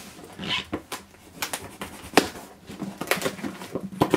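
A knife slitting the packing tape along the seam of a cardboard shipping box: an irregular run of short scrapes and clicks as the blade cuts through tape and cardboard.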